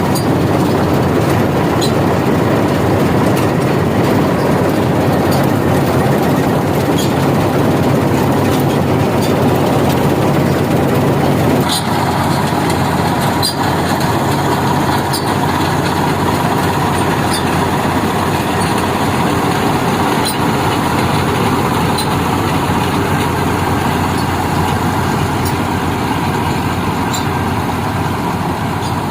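Dasmesh 3100 mini combine harvester running at work on rice: its engine and threshing machinery make a steady, loud drone, with a change in tone about twelve seconds in and light scattered ticks.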